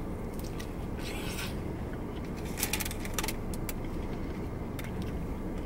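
Steady low rumble of car cabin road noise, with paper crinkling and rustling in small clicks and two brief bursts, about one second in and near the middle, as a wrapped taco is handled.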